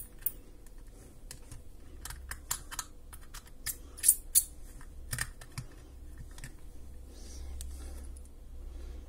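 Small screwdriver tightening the screws on a plastic PMR walkie-talkie casing: irregular light clicks and ticks of the tool against the screws and plastic, thickest in the middle.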